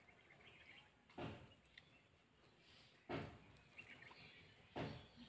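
Sucking and chewing at the raw, fibrous pulp of a palmyra palm fruit seed: three short slurps about two seconds apart. Faint bird chirps sound between them.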